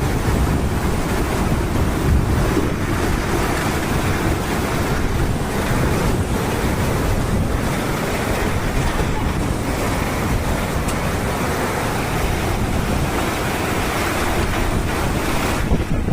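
Floodwater rushing, a steady churning noise, with wind buffeting the microphone. Near the end the hiss dulls and the wind rumble grows.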